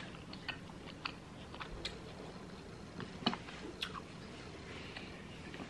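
Close-up chewing of a mouthful of tri-tip steak: soft wet mouth sounds with scattered short clicks and smacks. The sharpest click comes about three seconds in, around when the fork goes to the plate.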